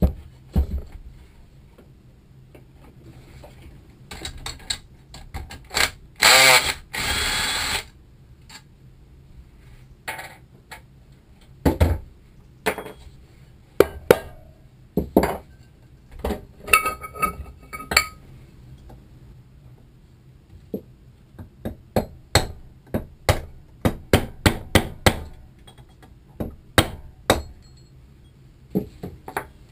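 A cordless drill runs for about two seconds. Metal parts and tools clank now and then, and near the end a fast series of hammer taps strikes the housing of a Kanzaki KM2P-1 gearbox.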